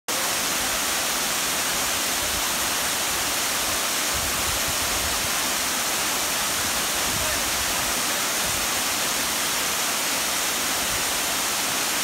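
Small waterfall pouring over rocks: a steady, even rush of falling water.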